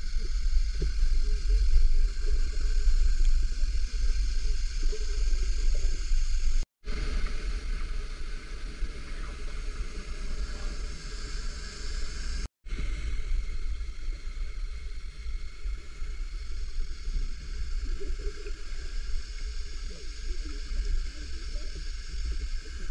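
Muffled underwater noise of a river picked up by a submerged camera: a steady low rumble with water sloshing and gurgling. It drops out to silence twice for a moment.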